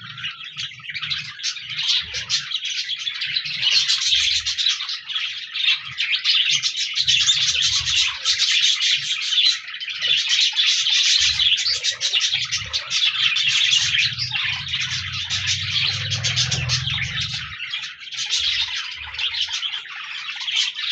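A flock of budgies (budgerigars) chirping and warbling together in a continuous, busy chatter.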